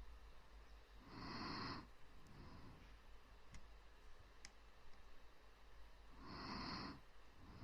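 Soft, close-miked human breathing for ASMR: two slow breaths about five seconds apart, each followed by a fainter second breath. A few faint clicks fall between them.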